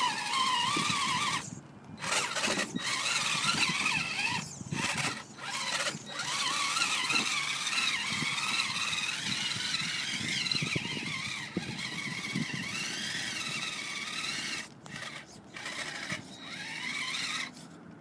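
Traxxas Summit electric RC rock crawler's motor and geartrain whining under throttle in low gear, the pitch wandering up and down as it crawls over rocks, stopping and starting several times as the throttle is let off and reapplied.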